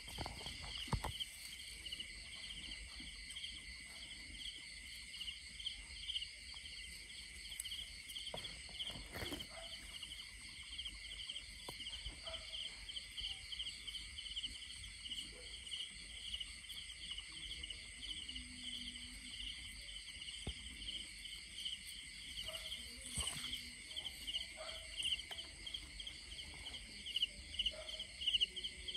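A steady chorus of insects chirping in rapid, even pulses, with a few brief rustles of dry grass and stalks.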